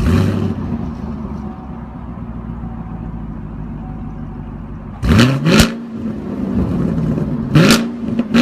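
V8 car engine that comes in suddenly and loudly, then settles to a steady idle. It is then revved four times in short blips: twice in quick succession about five seconds in, and twice more near the end.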